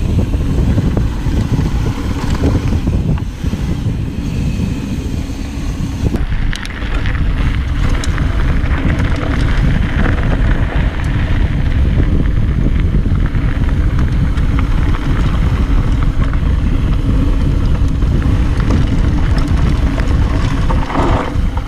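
Wind buffeting the action camera's microphone as a Yeti SB66 mountain bike descends a dirt trail at speed, with tyre noise underneath. From about six seconds in, frequent small clicks and rattles come from the bike over rough ground.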